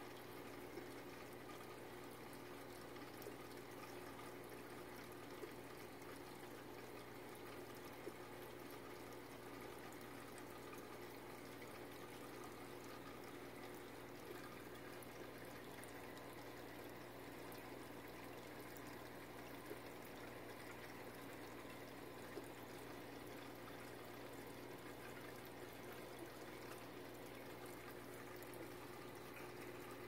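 Steady, faint trickle of running water in a home aquarium, with a low steady hum underneath.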